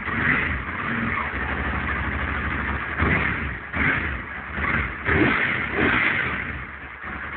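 Ducati 90-degree V-twin motorcycle engine idling with a lumpy low pulse, blipped up in revs several times around the middle.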